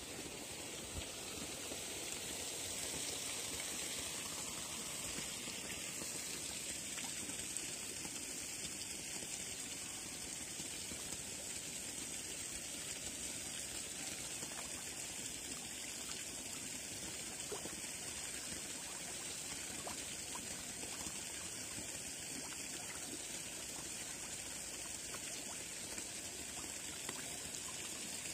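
Steady running water trickling and splashing into a pond from an inflow pipe.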